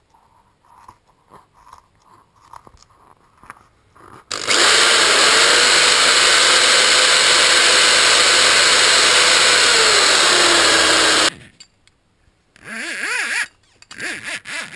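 Scissors snipping through a tennis ball. Then an electric drill runs at one steady speed for about seven seconds, boring through the tennis ball, and its pitch sags just before it stops suddenly. Rubbing and scraping of the ball follow near the end.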